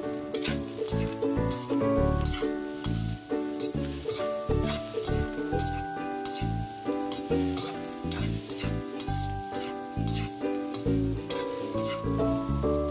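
Egg fried rice sizzling in a wok while a metal spatula stirs and scrapes it, with short scrapes and clicks, under background music with a repeating bass.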